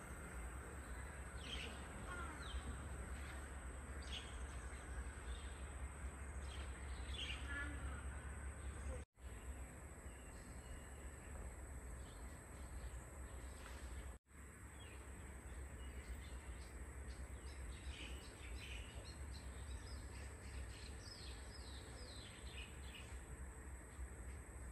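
Faint outdoor birdsong: scattered short chirps and calls, with a couple of quick runs of repeated notes, over a steady low rumble.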